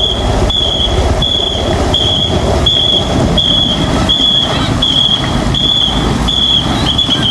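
A whistle blown in short, even blasts of one steady high note, about one and a half per second, keeping the stroke rhythm for a ghe ngo long-boat paddling crew. A steady rushing noise runs underneath, and the last blast near the end is held longer.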